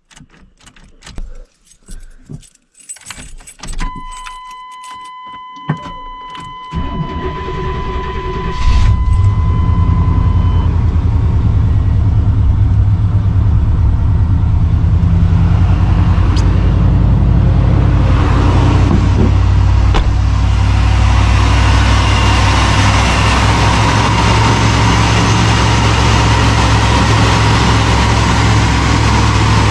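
Keys jangling in the ignition of a Chevrolet pickup and a steady dashboard warning tone, then the engine cranks and catches about nine seconds in, started on a freshly charged battery, and keeps running steadily.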